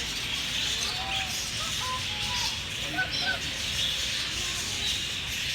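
Birds chirping: scattered short, quick notes over a steady hiss.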